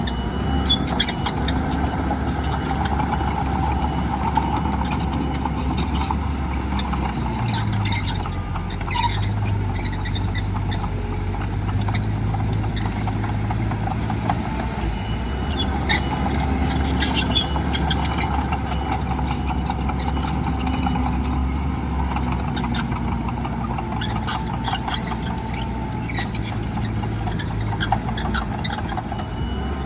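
Heavy diesel engine of earthmoving equipment running steadily, its pitch dipping and rising again about seven seconds in, with scattered clanks and knocks.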